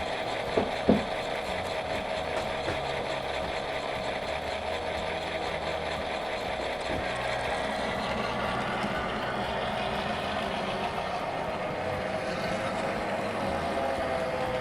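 HO-scale model diesel locomotive with onboard sound, its diesel engine sound running steadily, with two sharp clicks about a second in.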